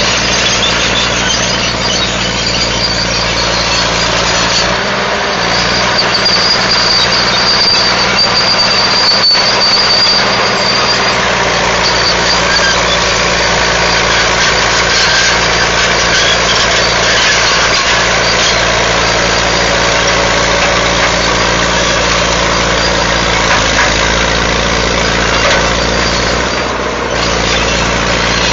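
Caterpillar 955H crawler loader's diesel engine working under load while the loader pushes over brush and a tree. A thin high squeal rises above it about five seconds in and lasts several seconds.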